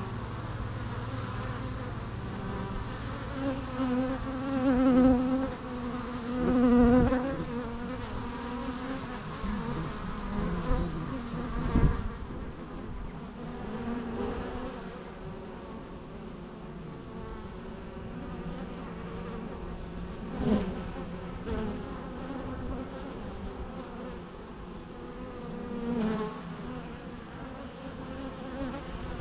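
Bees buzzing, with single bees flying close past so the hum swells and bends in pitch; the loudest passes come about five and seven seconds in. A few faint clicks and knocks sound briefly among the buzzing.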